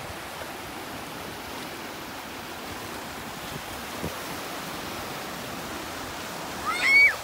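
Small waves breaking and washing up a sandy beach in a steady hiss. Near the end comes one short, high-pitched rising squeal, the loudest sound.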